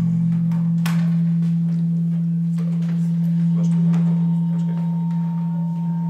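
Acoustic feedback from condenser microphones aimed at active loudspeakers in a no-input setup: a loud, steady low hum, with a fainter, higher tone coming in near the end and a single click about a second in.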